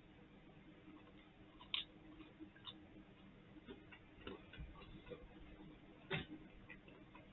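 Faint eating sounds from chewing chicken wings: scattered soft clicks and mouth smacks at irregular intervals, the clearest about two, four and six seconds in.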